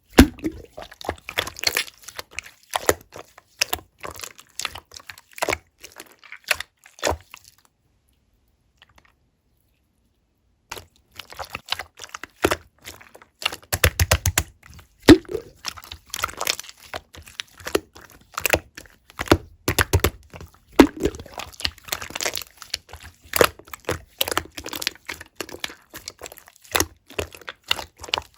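Soft white slime being squished and pressed by hand, making quick runs of sticky clicks and small air-bubble pops. The sound stops for about three seconds partway through, then picks up again.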